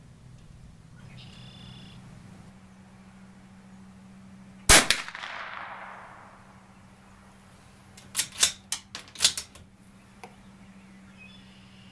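A single shot from a Bergara B14R bolt-action .22LR rifle about five seconds in, with a short echo trailing off. A few seconds later comes a quick run of metallic clicks as the bolt is worked to eject the case and chamber the next round. Faint bird calls can be heard in the background.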